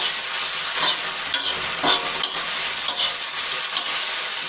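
Chopped onions and ginger-garlic paste sizzling as they fry in a kadhai, with a steel spoon stirring and repeatedly scraping and tapping against the pan.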